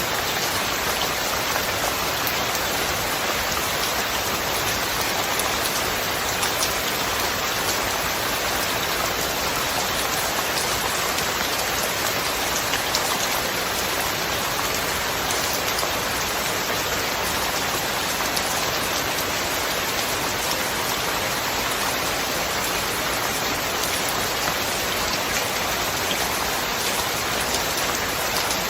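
Steady rain falling, an even hiss of many drops with faint scattered patter.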